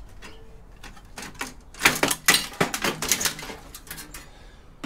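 A run of sharp clicks and clattering knocks from computer parts being handled as a desktop PC is dismantled for scrap. They start sparse about a second in and come thickest in the middle.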